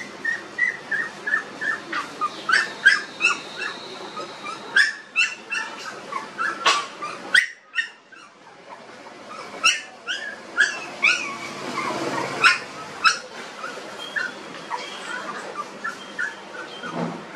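Twenty-five-day-old puppies whimpering and yelping: a run of short, high-pitched cries, several a second, with sharper yelps scattered among them and a short lull about halfway through.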